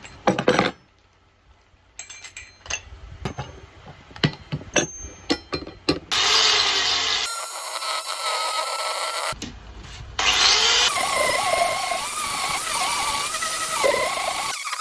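Handling clicks and knocks, then a grinder fitted with a ball-shaped carving bit spins up with a rising whine about six seconds in and stops abruptly. From about ten seconds it runs steadily, its whine wavering as the bit cuts into the wood.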